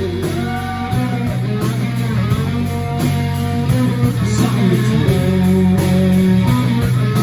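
Live rock band playing an instrumental passage between sung lines: electric guitars over bass guitar and a drum kit, with bending guitar notes on top.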